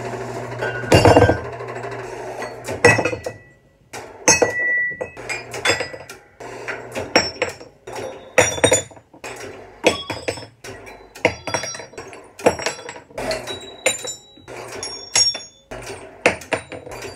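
A steady machine hum stops about a second in. Irregular metallic clinks and knocks follow, many with a brief high ring, as metal parts strike around the bandsaw.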